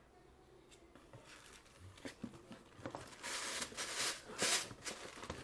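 Packing material being lifted out of a shipping box and set aside: rustling and crinkling with a few light taps, quiet at first and rising to its loudest near the end.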